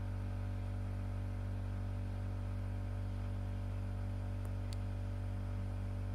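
Steady low electrical hum with no speech, and a single faint click about three-quarters of the way through.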